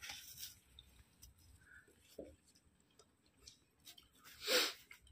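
Faint sounds of hands tearing roti and scooping meat off a plate while eating, with a short breathy sound about four and a half seconds in.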